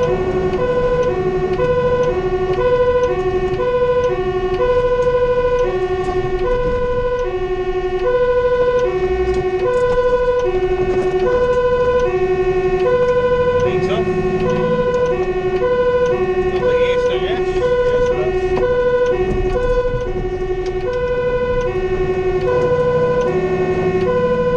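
Fire engine's two-tone siren alternating between a low and a high note about twice a second, heard from inside the cab over the truck's engine and road noise.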